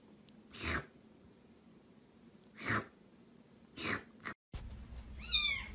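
A pet sneezing three times in short, sharp bursts. Near the end, a cat meows once with a falling pitch.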